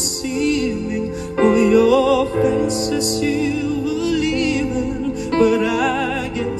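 Slow ballad music: a melody with strong vibrato over held chords, in a stretch with no lyrics.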